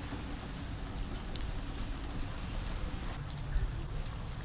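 Steady rain falling on the paving and plants: an even hiss broken by many sharp taps of close drops.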